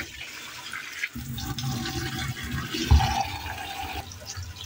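Rice being rinsed at a stainless steel kitchen sink: starchy rinse water pours out of a plastic bowl and splashes into the sink, then the tap runs into the bowl to refill it. A single knock about three seconds in is the loudest moment.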